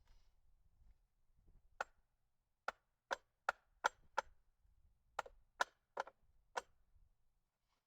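A series of about ten sharp clicks or taps, irregularly spaced, some in quick runs of two or three.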